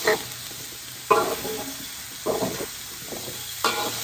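Chicken and chopped bottle gourd sizzling in a hot pot, stirred with several scraping strokes of a utensil against the pot, about one a second.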